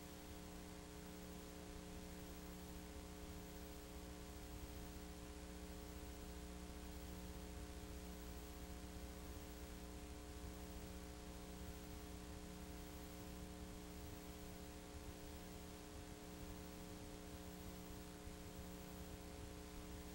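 Steady electrical mains hum with a faint hiss, unchanging throughout; no motorcycle engines are heard.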